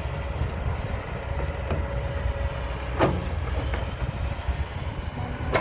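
Kobelco SK200 hydraulic excavator's diesel engine running steadily as the machine digs and lifts a bucket of dirt, with a sharp clank about three seconds in and another near the end.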